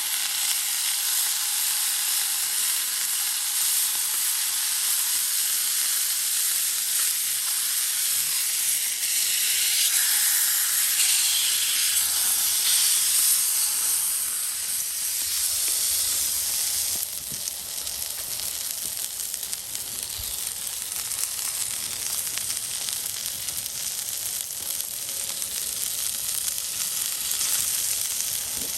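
Burger patty sizzling and frying on the heat: a steady hiss of sizzle that swells a little and then drops slightly in level a little past halfway.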